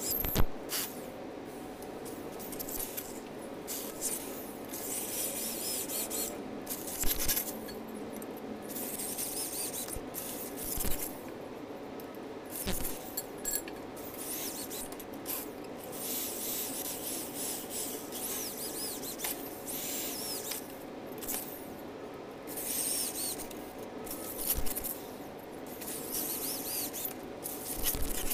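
Corded electric hand drill boring holes through a steel bracket bar, running in repeated stretches with short stops between them as it moves from hole to hole. A few sharp knocks come in between.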